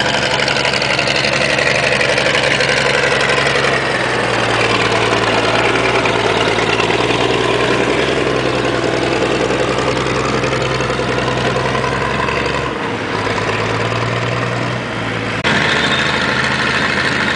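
Cummins diesel engine of a LeTourneau Super C pan scraper running steadily. Its note changes abruptly a few times, dropping slightly in level for a couple of seconds near the end.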